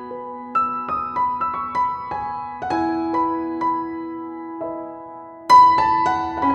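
Intro music played on piano or electric piano: a slow melody of single struck notes over held lower notes, with a louder chord struck about five and a half seconds in.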